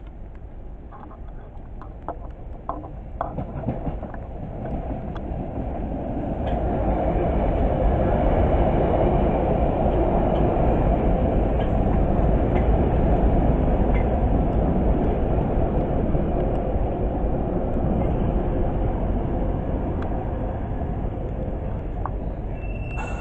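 London Underground 1973 stock train running past on the Piccadilly line. Its rumble and rail noise build over the first seven seconds or so as it approaches, then hold steady while it passes close by.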